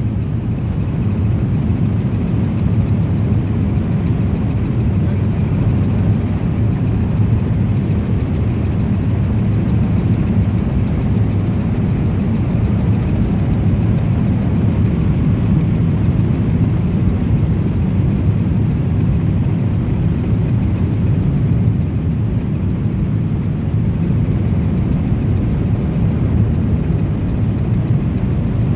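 Helicopter engine and rotor noise heard from inside the cabin: a steady, deep drone.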